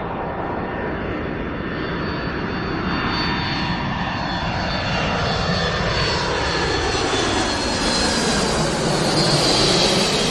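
Airplane engine noise in a crash sound effect, growing steadily louder and brighter as the plane comes in, with sweeping bands in its tone that fall in pitch. There is no impact yet.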